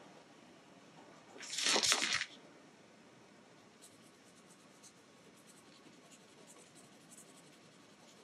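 Fine-tipped uni PIN 01 pigment-ink pen scratching faintly on paper in small strokes as it fills shapes with black. About a second and a half in comes one louder rushing noise lasting about a second.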